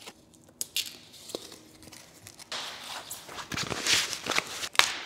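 Foam and paper packaging being pulled off a bicycle frame: tearing and crinkling, loudest in the middle, with a few sharp clicks.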